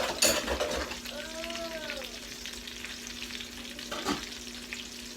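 Chicken pieces frying and sizzling in a skillet, with light knocks of a utensil against the pan near the start and about four seconds in. A steady low hum runs underneath, and a short tone rises and falls a little after a second in.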